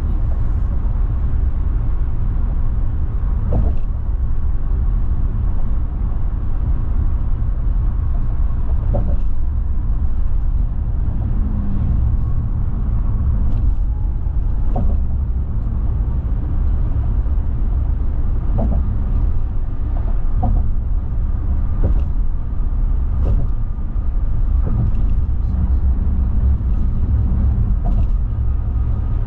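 Steady road and engine rumble of a car at highway speed, heard from inside the cabin, with scattered short knocks every few seconds.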